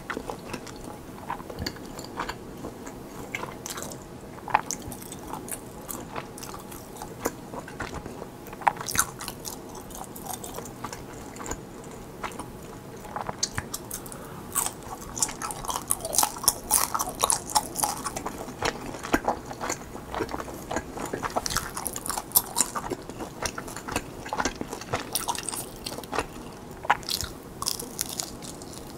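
Close-miked chewing of soft, chewy rice cakes stuffed with mozzarella cheese: biting and mouth sounds with many short clicks, growing denser and louder about halfway through.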